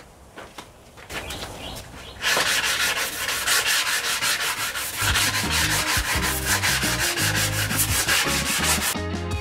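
Hand sanding block worked quickly back and forth over an epoxy-coated plywood panel: a loud rhythmic rasp of several strokes a second, starting about two seconds in. This is the sanding of a cured epoxy coat.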